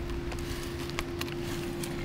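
A few light clicks from the revolver and its moon clips being handled, over a steady low hum.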